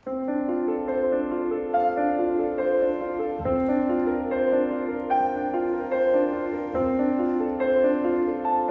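Grand piano played solo, starting at once with quick, rippling notes in the middle and upper range over a deep bass note struck about every three and a half seconds.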